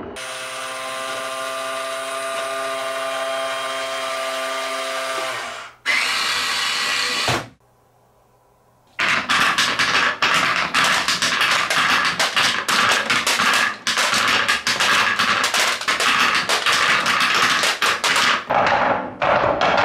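A battery-powered toy dump truck's small electric motor whirring steadily for about six seconds, followed by a short burst of noise and a brief silence. From about nine seconds in, wooden balls roll down zigzag wooden ramps, clattering and knocking rapidly against the boards and rails.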